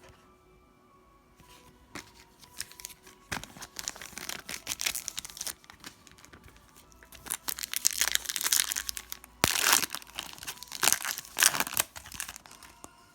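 Foil trading-card pack wrapper being torn open and crinkled in the hands, in several spells of crackling, the loudest near the end.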